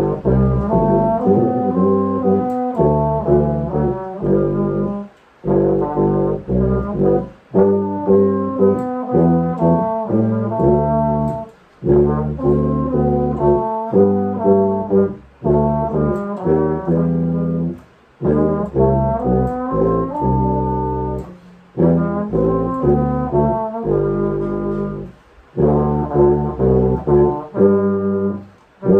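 Trombone and tuba duet playing a hymn, the trombone carrying the melody over the tuba's bass line. They play in phrases broken by short breathing pauses.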